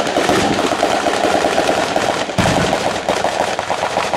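A ground-level batteria of firecrackers going off: a dense, unbroken string of rapid sharp bangs like machine-gun fire, with a deeper bang about two and a half seconds in.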